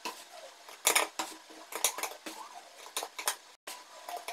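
A metal spoon scooping mango pickle from a plastic tub into a plastic jar, giving a series of irregular clinks and scrapes.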